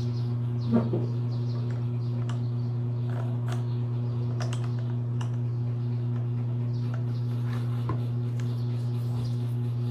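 Scattered small clicks and taps of hand tools working on a scooter's front-fork parts, with one louder knock about a second in, over a steady low hum.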